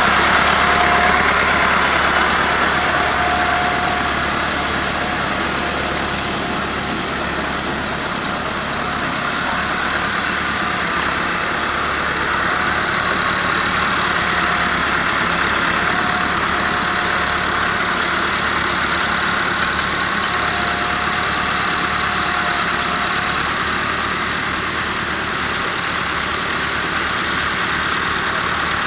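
Massey Ferguson 390 tractor's diesel engine running steadily while ploughing, loudest in the first few seconds and then easing off a little.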